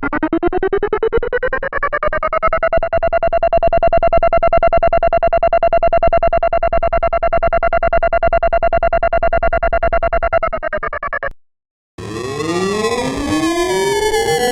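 Federal Sign & Signal Model 7 tornado siren sound, edited: one tone winding up in pitch, then held steady with a fast fluttering pulse, cut off suddenly about 11 seconds in. After a short gap, a jumble of several overlapping copies of the siren start winding up together at different pitches.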